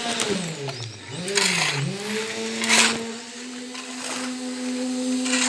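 A small electric motor whining: its pitch sags and recovers twice in the first two seconds, then it runs steady. Short hissy bursts break in a few times.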